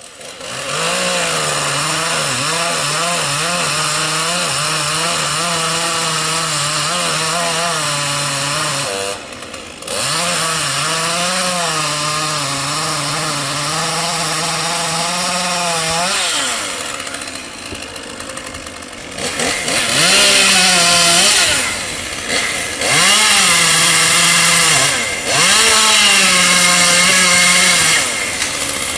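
Chainsaw running at high revs and cutting wood, its pitch wavering and sagging under load. It eases off briefly about nine seconds in and drops lower for a few seconds past the middle, then comes back in three shorter, louder cutting bursts near the end.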